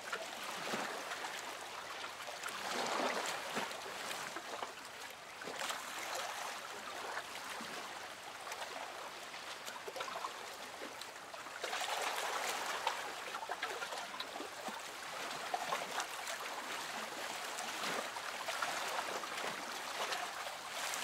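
Small waves lapping and washing over the sand in shallow water, a steady rushing hiss that swells and eases every few seconds.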